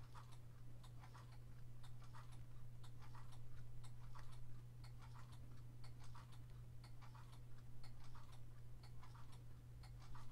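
A clock ticking steadily, about two ticks a second, over a low steady hum.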